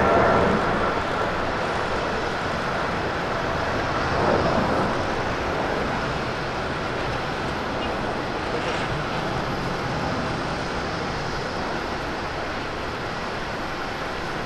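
Boeing 777-300ER climbing out after takeoff, its two GE90-115B turbofans making a steady rushing jet noise that slowly fades as it flies away. A faint high whine dies out in the first second or two.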